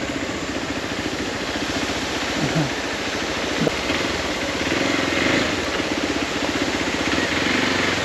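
Single motorcycle engine running steadily at an even, low pace, with rapid regular firing pulses and a haze of tyre and wind noise as the bike rolls over a rough dirt track.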